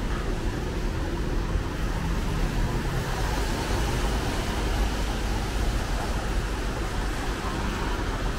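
Steady road traffic noise: a low rumble of passing cars with a hiss that grows louder about three seconds in.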